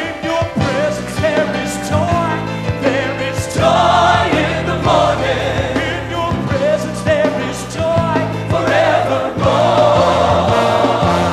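Upbeat gospel song: a choir singing over a band with bass and drums keeping a steady beat.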